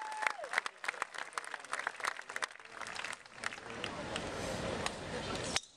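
Golf gallery applauding with scattered clapping that thins out and dies away over the first two or three seconds. It gives way to quieter crowd background noise.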